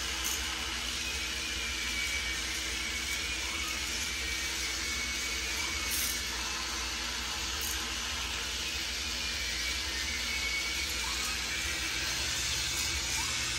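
Steady whirring of several small electric K'NEX motors driving spinning plastic rides, with a few faint clicks.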